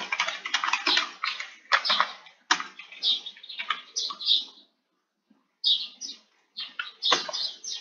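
Computer keyboard typing: a run of quick key clicks that stops for about half a second near the middle, then a few more keystrokes.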